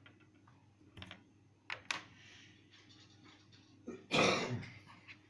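A few light clicks and taps from oil pastel sticks and paper being handled, then one short, louder noise about four seconds in.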